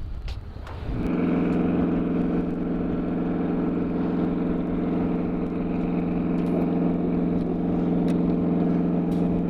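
A small engine starts running about a second in and keeps going at a steady, unchanging speed with an even hum.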